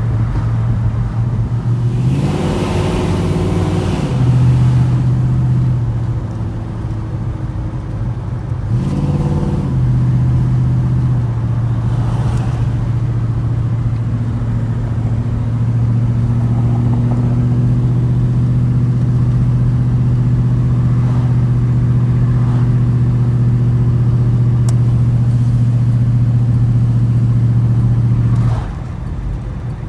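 A 454 cubic-inch big-block V8 running. The revs rise and fall twice in the first ten seconds, then it holds a steady drone until the sound drops off near the end.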